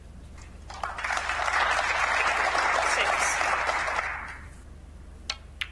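Audience applauding for about three seconds, swelling up and then dying away, followed by two sharp clicks near the end.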